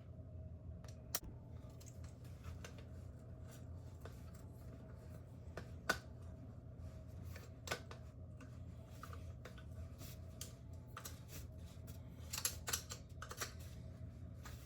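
Scattered small clicks and scrapes of metal and plastic track-light parts being handled and worked loose, the sharpest about six seconds in and a quick cluster near the end, over a steady low hum.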